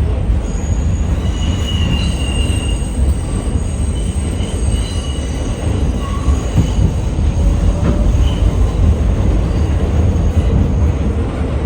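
New York City subway D train running: a heavy, steady rumble with thin high-pitched wheel squeals that come and go.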